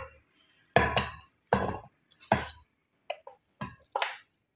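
A glass bowl and a wooden spatula knocking against a glass blender jug as gram flour is tapped and scraped out into it. There is a run of sharp knocks and clinks: three louder ones in the first two and a half seconds, then several softer ones.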